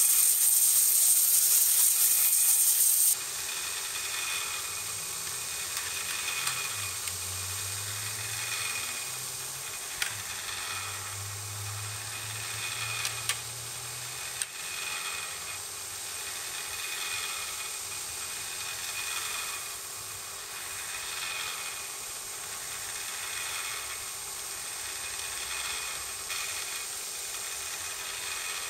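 Bench grinder running while a steel polearm blade head is ground against the wheel: a loud, even grinding hiss for the first three seconds that cuts off sharply, then quieter grinding that swells in strokes about every two seconds.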